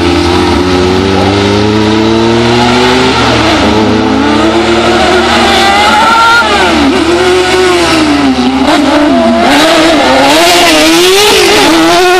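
Autocross racing buggy engines at full race pace, pitch climbing steadily early on, then rising and falling over and over as the drivers lift, change gear and accelerate through the dirt-track bends.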